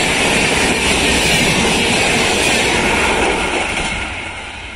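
Express passenger train coaches rushing past at about 130 km/h, a loud steady rush of wheels on rail and displaced air. It begins to fade about three and a half seconds in as the train draws away.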